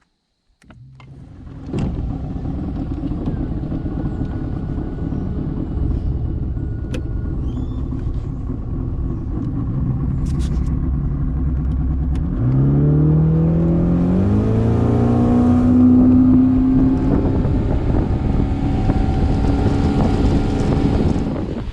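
Small boat's motor starting and running steadily, then throttling up about twelve seconds in, its pitch rising and holding higher before it eases off near the end.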